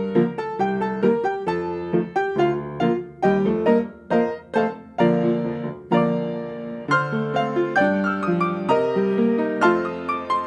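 Solo piano music: notes struck several times a second in a flowing line over held chords.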